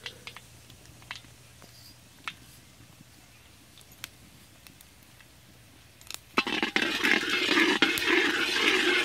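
Mustard seeds in hot sesame oil in an iron kadai: scattered single pops at first, then about six seconds in a loud, dense crackling and spluttering as the seeds burst all at once, while a metal ladle stirs them.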